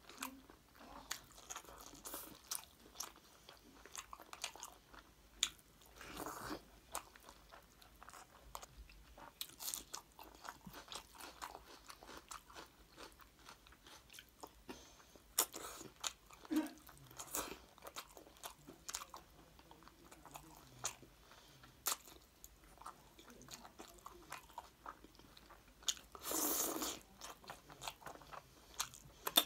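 Close-up eating sounds: chewing and wet mouth smacks as rice and chicken curry are eaten by hand, with many small clicks and squelches. A louder noisy sound lasting about a second and a half comes near the end.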